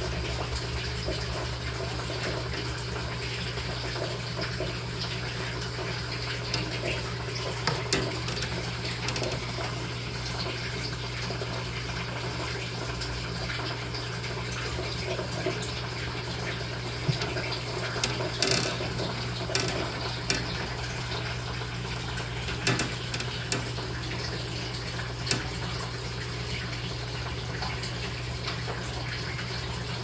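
Steady running-water noise over a low steady hum, with a few small splashes and clicks around the middle as baby water snakes strike at fish in shallow water.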